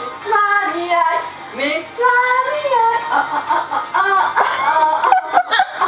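A French-language pop song with sung vocals plays, with voices singing along to a steady melody. A few sharp hand claps land near the end.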